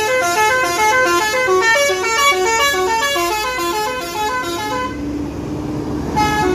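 Palala intercity bus's multi-tone musical "telolet" horn playing a fast tune of short notes, about five a second, stopping about five seconds in, then one short toot a second later. The bus's engine runs underneath, its pitch slowly rising near the end as the bus pulls away.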